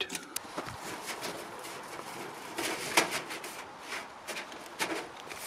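Thin perforated aluminium sheet and screen mesh being handled and pressed flat, with crinkling and scattered clicks and ticks; the sharpest tick comes about three seconds in.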